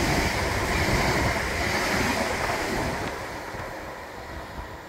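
ScotRail Class 385 electric multiple unit running past along the platform with a steady rushing rumble of wheels and motors. The sound fades after about three seconds as the train draws away down the line.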